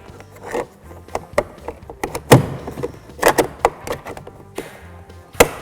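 Plastic door-handle trim piece being fitted to the door panel and snapped onto its clips: a series of sharp clicks and taps, the loudest about two seconds in, several more in quick succession around three seconds in, and one more near the end.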